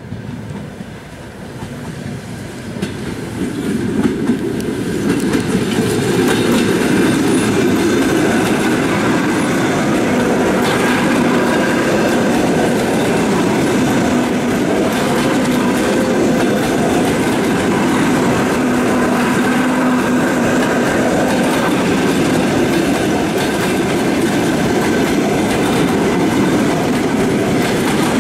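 EP2D electric multiple unit passing close by, growing louder over the first six seconds or so as it arrives. It then holds a steady loud rumble of carriages with the clickety-clack of wheels on the rails.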